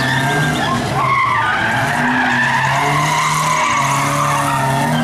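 A car drifting on asphalt: tyres squealing continuously as it slides, with its engine running hard underneath.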